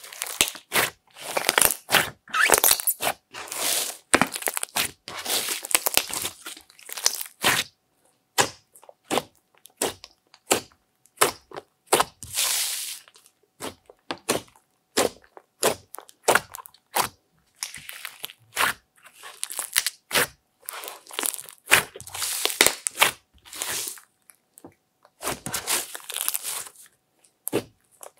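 Hands kneading, folding and pressing a large mass of glittery slime mixed with makeup, eyeshadow and clay. It makes irregular crackling, popping clicks and longer squelching stretches as the slime is squeezed and pushed down.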